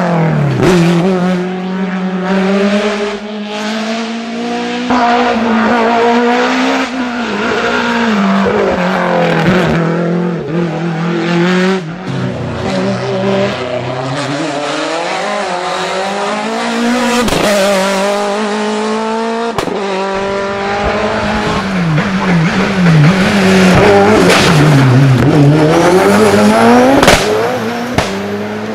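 Hillclimb race car engines revving hard and shifting as the cars pass, the pitch climbing and dropping again and again. There are a few sharp cracks in the second half.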